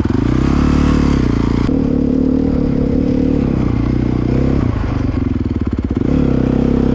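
Dirt bike engine running, blipped up and back down a couple of times between stretches of steady running.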